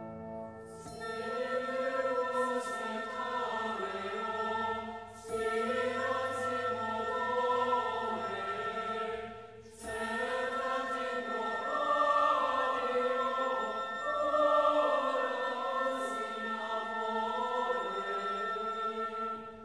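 Background music: a choir singing slow, sustained phrases over a steady held tone, with brief pauses about five and ten seconds in.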